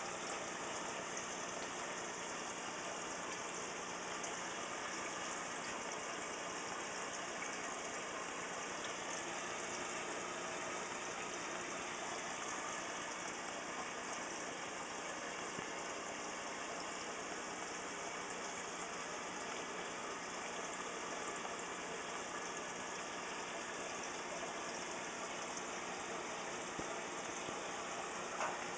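Steady hiss with a faint low hum from aquarium equipment running, and one small click near the end.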